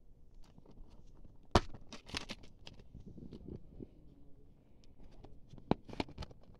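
Plastic Blu-ray case being handled and opened: a sharp snap about a second and a half in, then a run of plastic clicks and rattles. Another sharp click and more clicks come near the end as the disc in its centre hub is handled.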